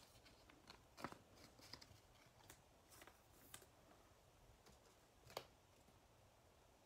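Near silence with a few faint clicks and light rustles of trading cards being handled, the sharpest click about five seconds in.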